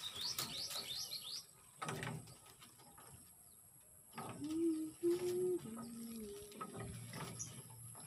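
A bird chirps a quick run of high, falling notes through the first second and a half. A few seconds later come low, held notes that step up and down in pitch.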